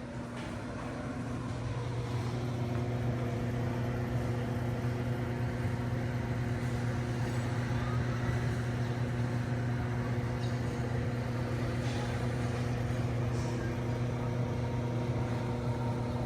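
A motor running steadily with a constant low hum, growing louder over the first couple of seconds and then holding even.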